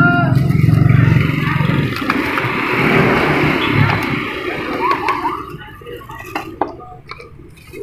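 A vehicle engine running close by for the first couple of seconds, then fading into street noise with a few short clinks and brief voices.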